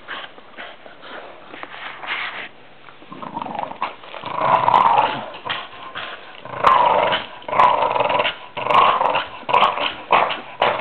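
A white Staffordshire bull terrier growling in play while tugging on a toy, in rough bursts that start softly, grow loud a few seconds in, and come faster toward the end.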